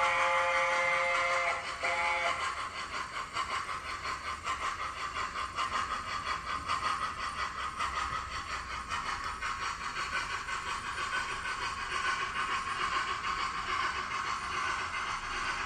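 Sound-fitted OO-gauge model A4 Pacific's chime whistle sounding a held chord that ends about a second and a half in, with one short toot just after. It is followed by steady, rapid steam chuffing from the model's sound system as the locomotive runs.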